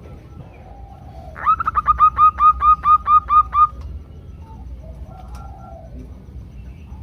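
Zebra dove calling: a quick run of about a dozen short, hooked notes lasting a couple of seconds, starting about a second and a half in, with faint lower cooing around it. This is the female's call to males.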